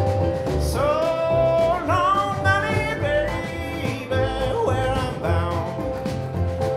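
Live country-folk band playing between sung lines: acoustic guitar, mandolin and snare drum at a steady beat, with some notes sliding up in pitch about a second and two seconds in.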